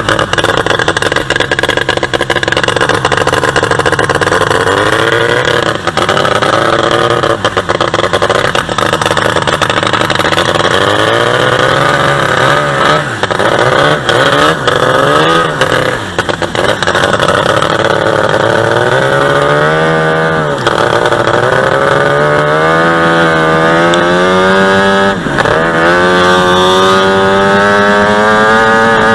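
45 hp two-stroke boat engine running hard under way, its pitch climbing and dropping several times as the throttle is worked, then climbing steadily near the end. Water rushes and splashes along the hull underneath.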